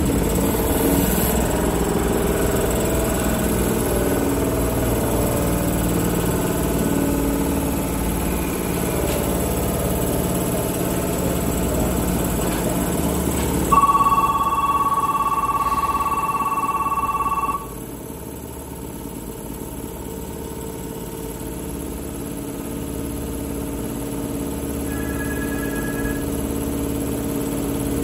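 Izuhakone Railway Daiyuzan Line electric train running with a steady rumble. About halfway through, a loud steady ringing tone sounds for about four seconds and stops together with a sudden drop to a quieter steady hum, with a brief faint higher tone near the end.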